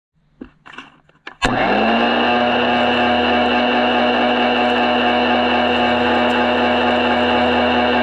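A few handling clicks, then a vacuum cleaner is switched on with a click about a second and a half in: its motor spins up quickly in pitch and then runs with a steady, loud whine.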